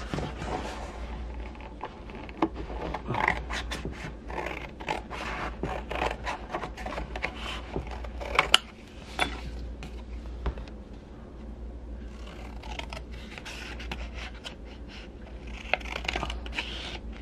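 Scissors cutting through a sheet of watercolor paper: a long run of irregular snips and blade scrapes, with a short lull partway through.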